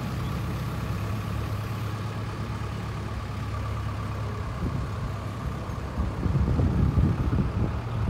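Backhoe loader's diesel engine running steadily as the machine drives slowly, heard from a distance. Wind buffets the microphone in gusts from about six seconds in.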